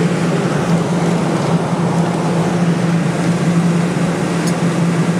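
Steady arcade din: a constant low hum with a hiss of machine noise, unchanging throughout.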